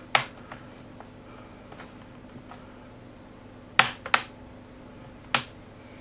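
Sharp plastic clicks of the HP Pavilion Gaming 15-ak's plastic case latches snapping loose under a plastic pry tool: one at the start, two close together about four seconds in, and one more a little over a second later.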